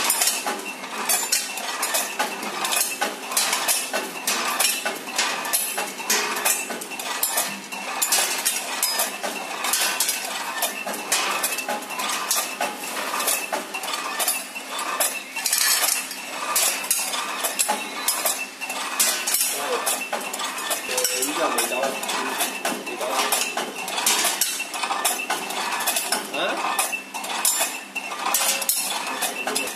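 Multihead weigher counting single wrapped candies: a dense, continuous metallic clatter of its stainless-steel chutes and hoppers as the candies slide and drop through them, over a faint steady hum.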